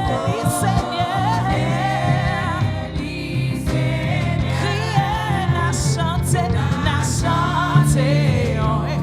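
Live gospel worship music: several voices singing with vibrato over a steady bass, with drum and cymbal hits.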